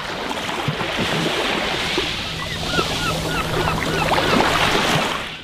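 Sea sound effect of waves and surf, with a series of short chirps over a steady low hum; it fades in and stops abruptly.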